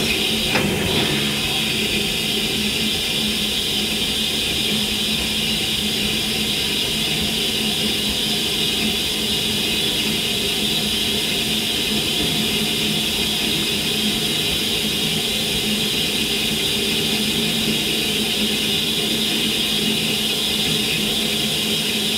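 Steady hiss over a low hum from a railway locomotive, level and unchanging.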